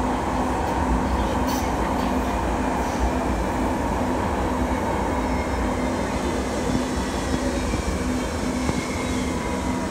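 Muni light rail vehicle running through a subway tunnel, heard from inside the cab: a steady rumble of wheels on rail with a low hum that flickers on and off.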